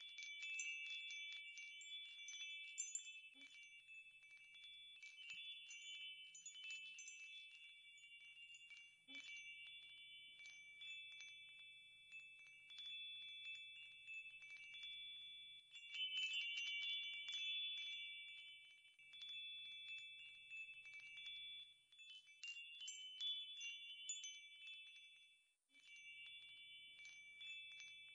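Wind chimes tinkling: irregular light strikes over a steady high ringing, which briefly drops away a couple of times near the end.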